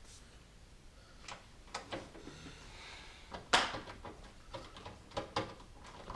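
Small metal parts of a computer case being worked loose and removed by hand: a string of irregular clicks and clinks, the loudest about three and a half seconds in, with a short scrape shortly before it.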